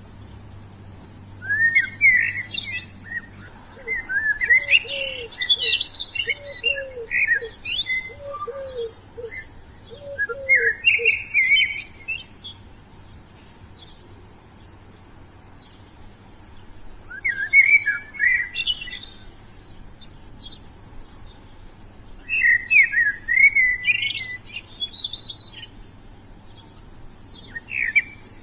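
Wild songbird singing in bursts of quick, twittering chirps and whistles, about six phrases with pauses of a few seconds between them. A run of short, lower, paired notes repeats about once a second during the first phrases, over a steady high hiss.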